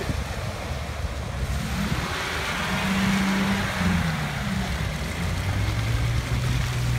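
Off-road 4x4 engines running and pulling through shallow lake water, the engine note rising and falling as the throttle changes, over a steady wash of splashing water and wind.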